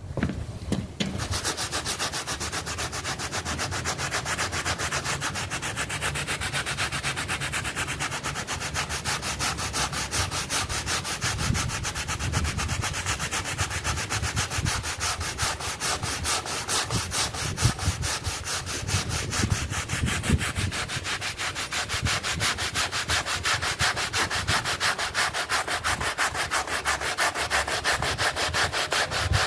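Stiff-bristled hand brush scrubbing a wet, soapy shag rug in fast, steady back-and-forth strokes, starting about a second in.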